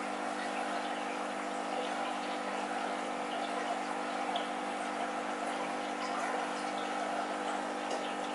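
Aquarium running: steady bubbling and trickling water from an air-driven sponge filter over a constant low hum, with scattered small bubble pops.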